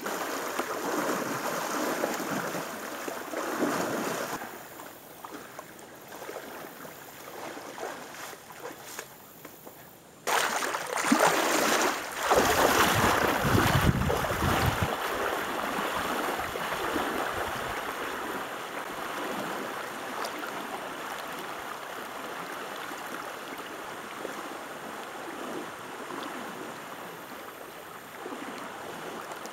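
Feet wading and splashing through a river running about four feet above normal. About ten seconds in it changes to shallow water rushing over rocks close by, loudest for a few seconds as the wader splashes past, then settling to a steady flow.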